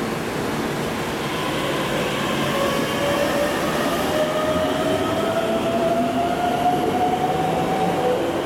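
Keikyu 600 series electric train pulling away: its traction motors whine, rising steadily in pitch as it accelerates, the sound echoing in the underground station.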